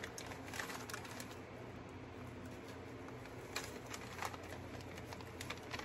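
Quiet room tone with a faint steady low hum, broken by a few soft clicks and rustles from handling the decorated strainer.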